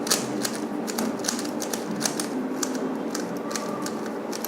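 Rubik's cube being twisted quickly to scramble it, its plastic layers clicking in an irregular run of a few clicks a second.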